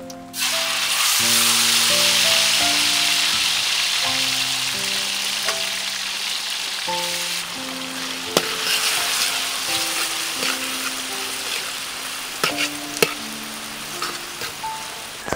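Sliced garlic-marinated pork sizzling in hot oil in a steel wok. The sizzle starts suddenly about half a second in as the meat goes in, is loudest over the next few seconds, then slowly eases. A metal spatula clinks and scrapes against the wok a few times as the pork is stir-fried.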